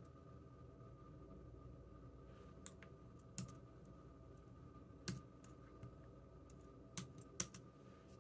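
A computer keyboard struck now and then: a handful of single key clicks a second or two apart, two of them close together near the end, over a faint steady room hum.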